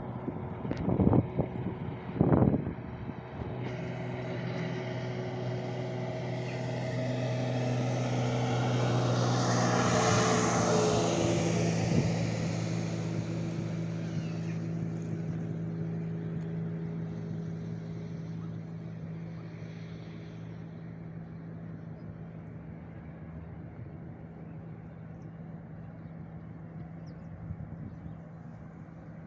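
An engine drone that grows louder to a peak about ten seconds in, then slowly fades, like a vehicle passing. A few sharp knocks sound near the start.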